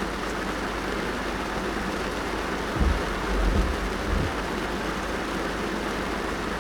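Steady rain falling on a car's roof and windows, heard from inside the car. A few low thuds or rumbles come a little under halfway through.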